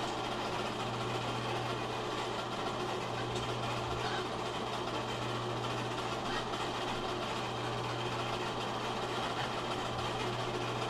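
A steady low hum over constant hiss, unchanging, with no clear beat or rhythm.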